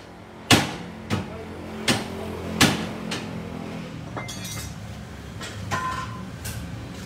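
Hammer striking metal at a car's front suspension during shock absorber work, four sharp blows about two-thirds of a second apart, then a few lighter metallic clinks of tools with brief ringing in the second half.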